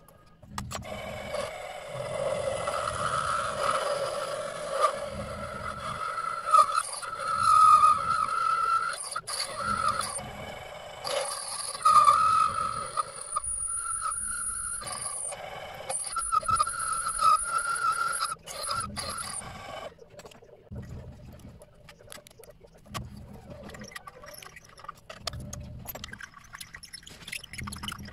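A small electric motor tool runs with a wavering whine and a scraping sound, as in machining metal, and stops about twenty seconds in; light clicks and taps follow.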